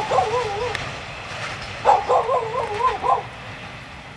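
A dog whining and yelping in drawn-out calls that waver up and down in pitch: one at the start, then a longer run about two seconds in.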